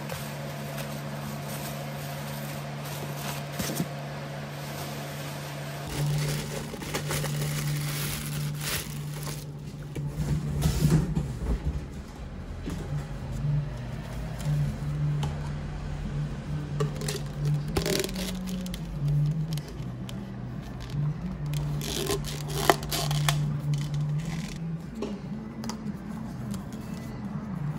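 Handling sounds of plastic packaging and paper cups being moved about on a wooden table: scraping, light crackling and a few sharp taps, over a low continuous drone.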